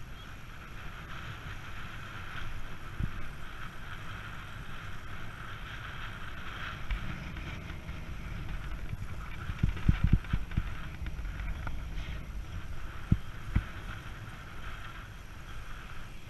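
Wind buffeting the microphone of a bicycle-mounted camera while riding, over steady tyre and road noise, with a cluster of knocks about ten seconds in and another sharp knock about three seconds later.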